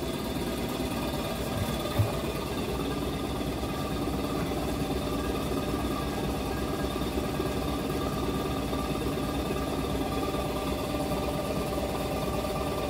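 Steady hum of a running motor with several even tones, and a single sharp knock about two seconds in.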